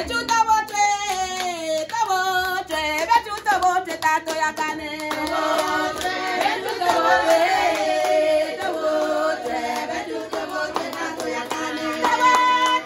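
Singing with music, kept in time by a steady beat of sharp claps.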